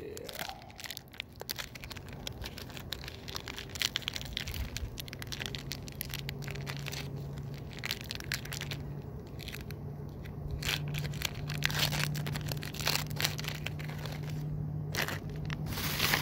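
Foil Pokémon booster pack wrappers being crinkled and torn open by hand: a long, dense run of crackling and crunching. A low steady hum runs underneath from about four seconds in.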